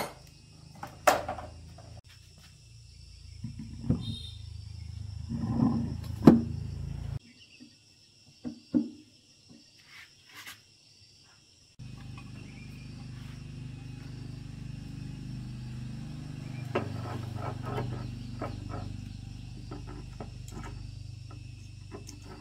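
Scattered clicks and knocks over a low hum, with insects chirping steadily in the background. The hum cuts off abruptly about seven seconds in and comes back steady about five seconds later.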